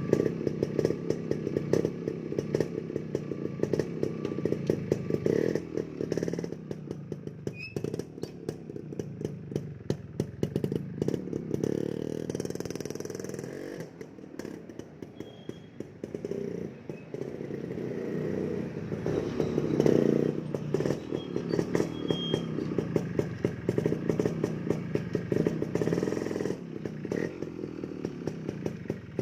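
Kawasaki HD3 motorcycle's 125 cc single-cylinder four-stroke engine running, its speed rising and falling with the throttle: quieter around a quarter of the way in, loudest about two-thirds of the way through.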